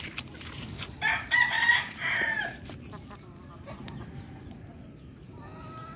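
A rooster crows once, a single multi-part call of about a second and a half starting about a second in.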